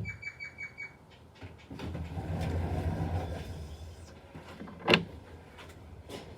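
Five quick high-pitched beeps, then a low engine rumble that swells and fades over about two seconds, and a sharp click about five seconds in.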